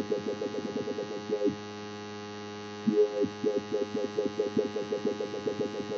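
Dubstep wobble bass from the Toxic Biohazard software synth: a low, buzzy held bass note whose filter sweeps down again and again in a fast rhythmic wobble. It holds steady for about a second near the middle. Then the wobbles come back and speed up as the LFO rate is turned up.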